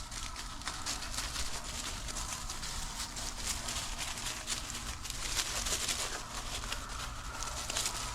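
Hunting hounds baying in the distance as they run deer, faint and on and off, over a close crackling rustle.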